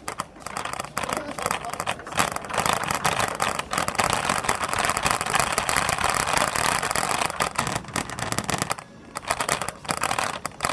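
Small wheels of a rolling cart clattering and rattling over a hard floor, a continuous scraping rattle that drops away briefly near the end before starting again.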